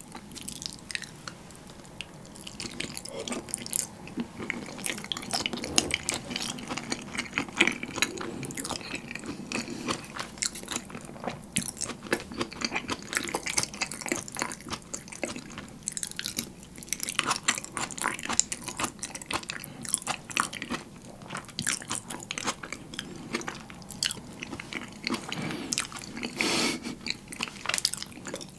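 Close-miked chewing of creamy shrimp carbonara in a thick cheese sauce, with many short, wet mouth clicks.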